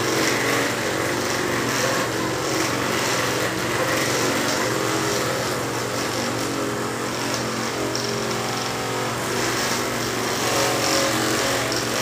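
A motor running steadily with an even drone.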